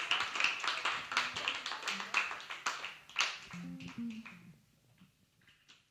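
Audience clapping, thinning out and dying away about four seconds in, while an electric bass plays a few soft low notes.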